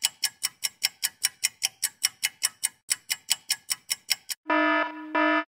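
Countdown timer sound effect: clock-like ticks, about five a second, followed near the end by two short electronic beeps as the countdown runs out.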